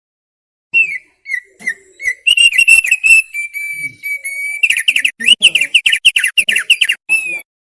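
Opior paruh tebal (thick-billed heleia) singing. Separate clear whistled notes lead into a long held whistle near the middle, then a fast run of whistles that bend up and down.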